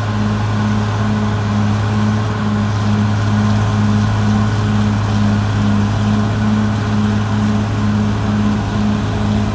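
Caterpillar D6R XL bulldozer's diesel engine running steadily under work, a deep even hum with a regular throb about three times a second.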